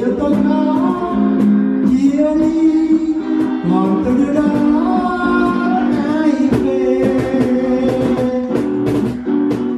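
Live acoustic music: a steel-string acoustic guitar strummed steadily under a voice singing held, sliding notes into a microphone, with hand strokes on a cajón keeping the beat.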